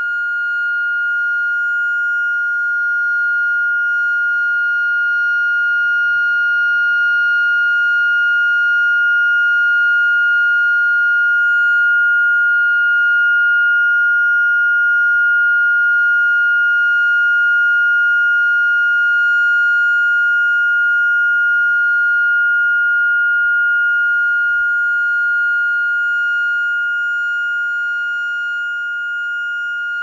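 Custer Electric electronic warning siren sounding its steady 'alert' signal through four horn loudspeakers: one unbroken high pitch held without wavering, growing a little louder in the middle and easing back.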